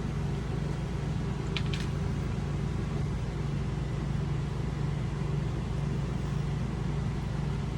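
Steady low mechanical hum, with one short faint tap just under two seconds in.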